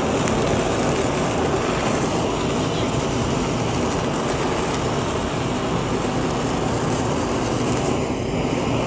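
Hand-held kitchen blowtorch flame-searing slices of raw beef on sushi rice. It is a steady, loud hiss that begins suddenly and runs on without a break.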